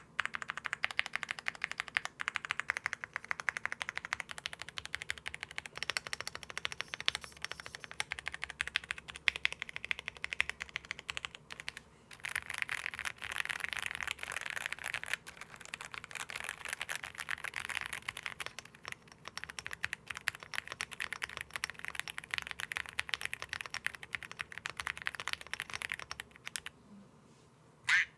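Fast typing on a mechanical keyboard with Akko Bittersweet tactile switches, an Akko M1 V5 board fitted with all its foams. The keystrokes come in a rapid, dense stream that pauses briefly about twelve seconds in and stops shortly before the end.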